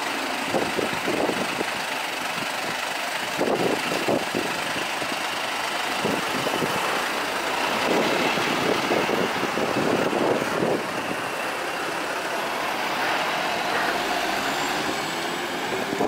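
Mercedes-Benz Sprinter 516 CDI minibus's four-cylinder diesel engine idling at the stop, then pulling away and driving off, a little louder from about halfway through.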